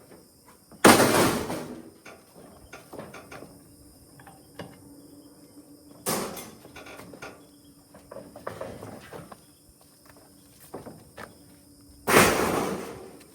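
Scrap metal being thrown down while a trailer is unloaded: three loud crashes about five seconds apart, each ringing out for about a second, with smaller knocks and clanks between.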